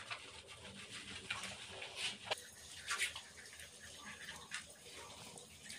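Hands scrubbing a Shih Tzu's wet, soapy coat: faint wet rubbing and squishing, with a few short splashy strokes about two and three seconds in.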